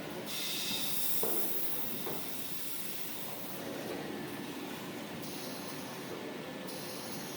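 Automatic log saw for large paper towel rolls running steadily, with stretches of hissing that come and go and a single knock about a second in.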